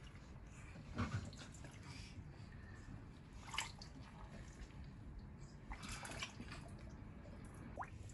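Faint water sounds from an inflatable paddling pool: a few scattered drips and small splashes, about a second in, at three and a half seconds and around six seconds.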